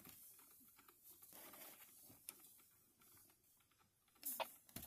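Near silence: faint background with a few soft ticks and one short, louder sound about four seconds in.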